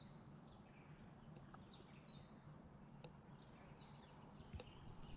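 Faint bird chirps: a string of short, high notes, about two a second, over near silence.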